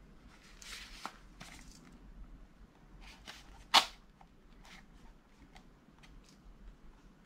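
Knife blade slitting the seal of a small cardboard box: faint scratching and scraping, with one sharp click a little under four seconds in.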